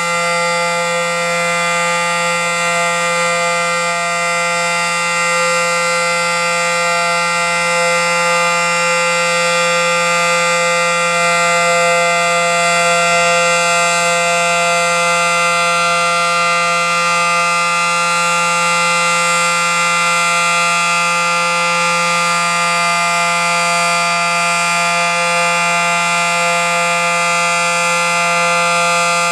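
Federal Signal SD-10 dual-tone civil defense siren sounding its steady alert signal: a sustained, unwavering chord held at constant pitch and level.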